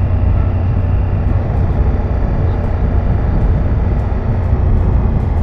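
Ducati Multistrada V4S's V4 engine running steadily while riding at a constant pace, a loud even rumble mixed with rushing noise.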